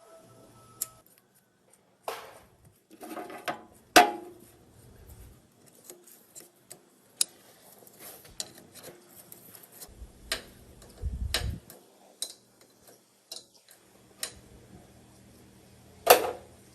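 Scattered metallic clinks and taps of tools and engine parts being handled, with two louder sharp knocks, one about four seconds in and one near the end, and a short low rumble around the middle.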